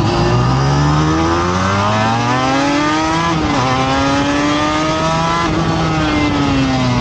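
Race motorcycle engine heard onboard, rising in pitch as it accelerates, then dropping sharply about three and a half seconds in at an upshift. It pulls up again, then eases off slightly near the end.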